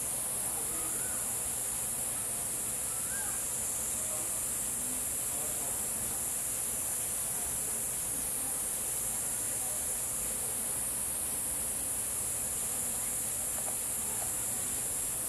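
Steady high-pitched insect chorus, even and unbroken throughout, with a few faint short chirps in the first few seconds.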